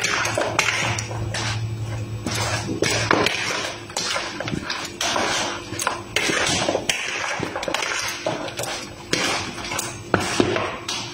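Metal fork scraping and knocking against a plastic mixing bowl as raw chicken pieces and chopped vegetables are stirred and tossed, in quick irregular strokes.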